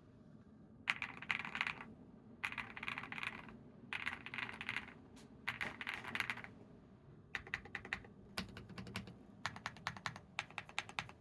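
Typing on a Qwertykeys QK100 mechanical keyboard with lightly lubed Epomaker Bluebird switches, foam-dampened case and deep KCA-profile keycaps. Four quick bursts of rapid keystrokes are followed, from about seven seconds in, by runs of more evenly spaced key presses.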